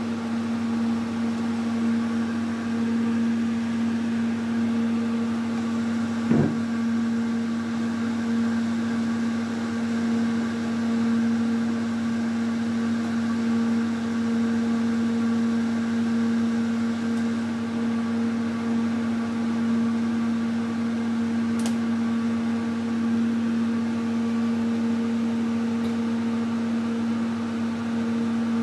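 Melag Vacuklav 31-B steam autoclave in its pressure-release phase, with chamber pressure dropping from about 1.2 to 0.3 bar: a steady machine hum over a low even rush. One short knock about six seconds in.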